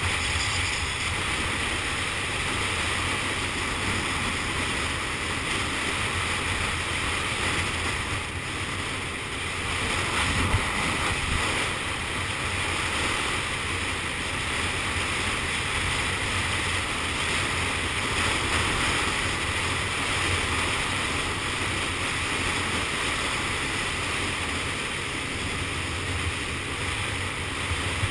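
Steady wind rushing over the microphone of a camera on a moving motor scooter, with the scooter's small engine running steadily underneath.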